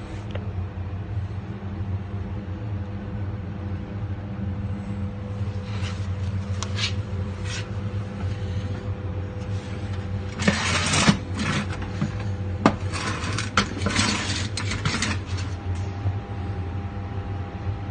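An engine running steadily with a constant low hum. A cluster of knocks and scraping noises comes about ten seconds in and lasts a few seconds.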